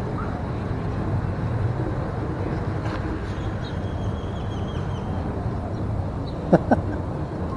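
Steady outdoor street ambience: an even low rumble of distant traffic, with a short louder sound about six and a half seconds in.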